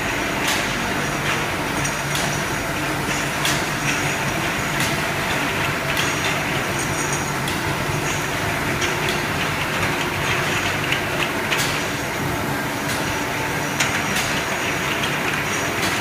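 Automatic glass bottle washing machine and its chain conveyor running steadily, with irregular sharp clicks from glass bottles knocking together on the line.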